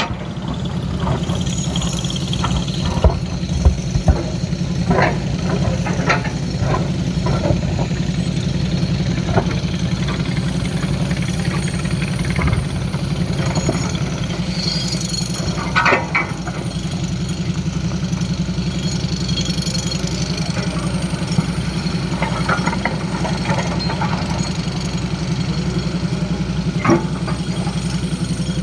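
Excavator's diesel engine running steadily, with a handful of short sharp knocks scattered through it.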